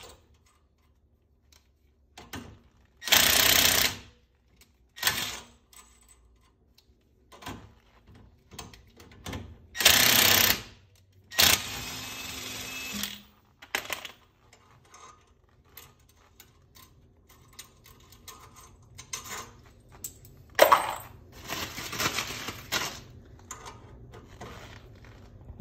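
Cordless impact wrench hammering in several short bursts, running lug nuts down new ARP wheel studs to pull them into the front wheel hub until seated. Light metal clinks of nuts and studs being handled come between the bursts.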